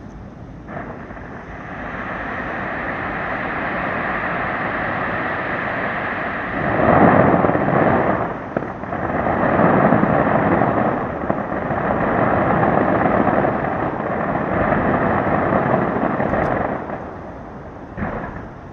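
New Year fireworks going off in a dense, continuous barrage that swells about seven seconds in, then thins out to single sharp bangs near the end.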